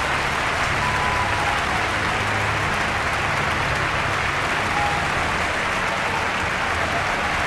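Steady heavy rain, an even hiss, over a low droning hum, with a couple of faint short tones drifting in now and then.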